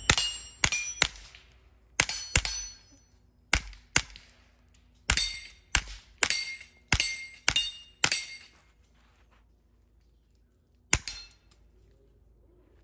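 Suppressed Kel-Tec CP33 .22 LR pistol firing Federal 45-grain suppressor ammunition: about fourteen shots at an uneven pace of roughly one to two a second, each with a short metallic ring, then a single last shot after a pause of nearly three seconds. The pistol cycles every round without a malfunction.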